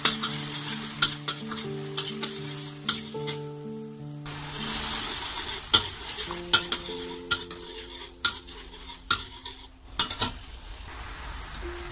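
Metal spatula stirring sauce in a stainless steel wok, scraping and clicking irregularly against the pan while the sauce sizzles, the hiss swelling for a second or so about halfway through.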